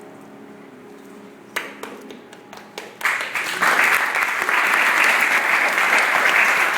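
The last piano chord dies away. A few scattered claps follow, and about three seconds in the audience breaks into steady applause.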